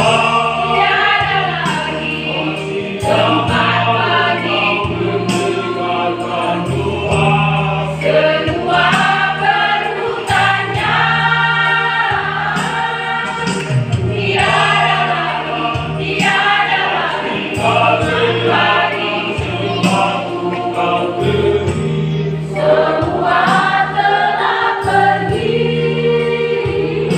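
Church choir singing a gospel hymn of praise, many voices together, over steady low accompanying notes that change every second or two.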